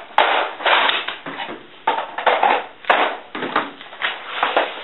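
Plastic Nerf blasters clattering and rattling as they are snatched up and handled, in a string of irregular noisy bursts.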